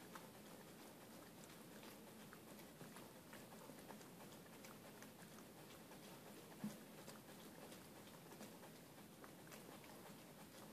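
Faint gnawing of a poodle at a plastic water bottle's cap: scattered light clicks and crinkles of plastic, with one louder knock about two-thirds of the way through.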